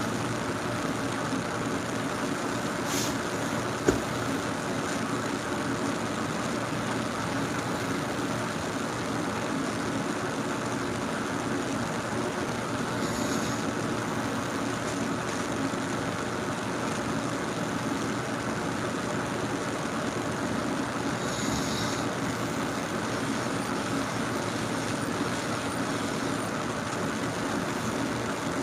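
Steady droning noise, even throughout, with a single sharp click about four seconds in.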